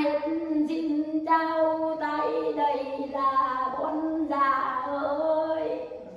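Children singing a melody unaccompanied, in a string of held notes that fade away near the end.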